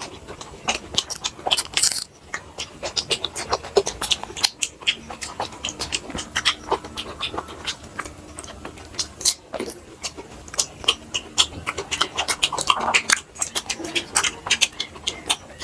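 Close-miked eating sounds: wet chewing and lip smacks, a dense run of quick sharp mouth clicks.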